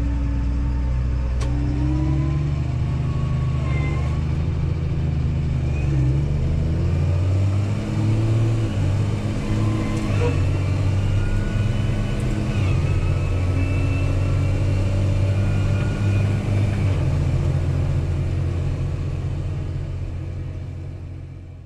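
Tractor engine running steadily, its pitch shifting a few times, then fading out at the end.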